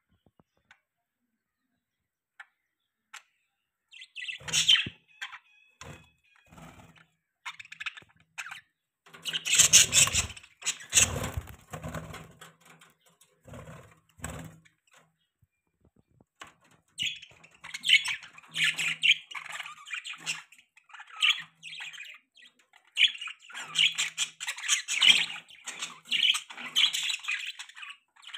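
Budgerigars chirping and chattering in quick, high bursts, starting about four seconds in and becoming dense and continuous in the second half. A few loud rustling knocks come around the middle.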